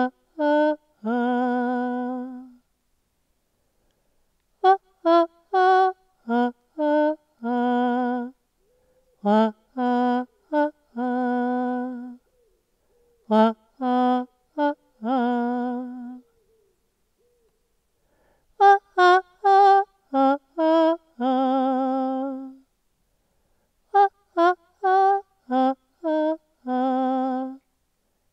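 A woman singing solo and unaccompanied, picked up dry by a headset microphone at her mouth, so no echoes from the surroundings are heard. About six short phrases, each a few quick notes ending on a long held note with vibrato, with a silent pause of a second or two between them.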